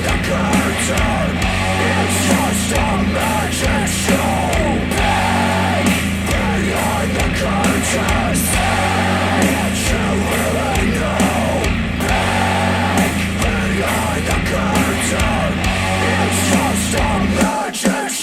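Loud, heavy rock music with distorted guitars, drums and shouted vocals, played back through KEF Q350 bookshelf speakers driven by an NAD C316BEE V2 integrated amplifier. Near the end the bass drops out and the band breaks into a few short stabbed hits.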